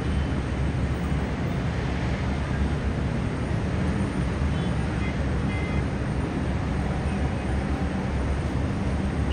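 Steady city traffic noise from a congested multi-lane avenue heard from high above: an even rumbling hum of many vehicles, with a few faint short high tones near the middle.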